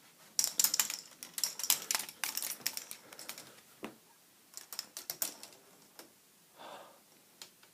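Balls clattering through the plastic track of a K'nex ball machine: a dense run of sharp clicks for about three seconds, a shorter burst a little past halfway, and a few single clicks.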